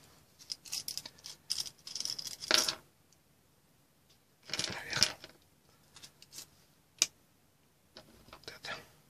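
Small metal clicks, rattles and scrapes from handling a precision screwdriver with a knurled brass handle and fitting it to a small screw, in short clusters, with one sharp click about seven seconds in.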